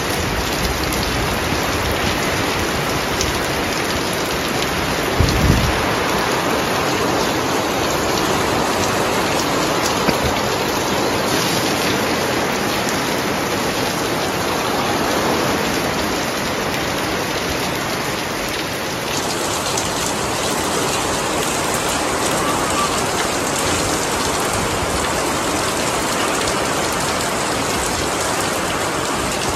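Heavy squall rain pouring down in a steady hiss, with a single dull thump about five seconds in.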